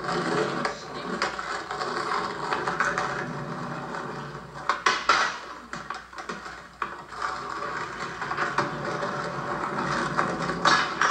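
Skateboard wheels rolling over pavement, with sharp clacks of the board hitting the ground about five seconds in and again near the end.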